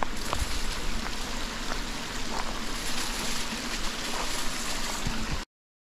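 Creek water running steadily past a concrete crossing, a continuous rushing noise that cuts off abruptly near the end.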